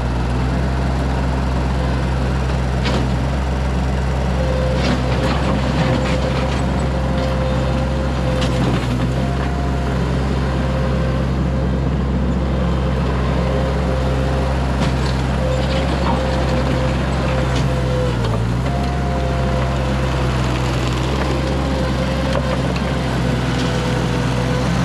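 Mini skid steer engine running steadily, with a higher whine that comes and goes and scattered knocks and scrapes.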